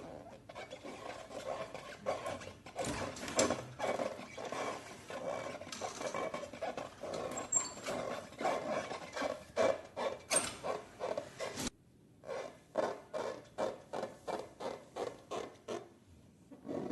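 Hands squeezing and kneading slime, a run of wet, squishy rubbing strokes. The sound cuts off abruptly about two-thirds of the way through, then comes back as regular strokes about three a second.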